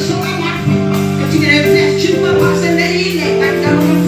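Worship music: sustained keyboard chords with a steady beat and some voices singing over it.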